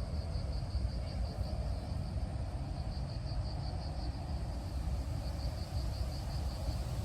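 Insects, crickets or the like, chirping in high, rapid pulses that come in runs with short breaks, over a steady low rumble.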